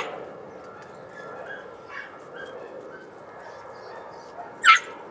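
Podenco puppy giving a sharp, high-pitched yelp near the end while hunting for a rabbit in brush piles, with a fainter yip a couple of seconds earlier.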